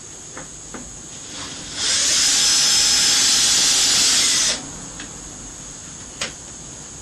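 Electric drill running for about three seconds as it bores a rivet hole for a hinge through the plastic container wall and aluminium strip, starting and stopping abruptly, with a few light knocks before and after.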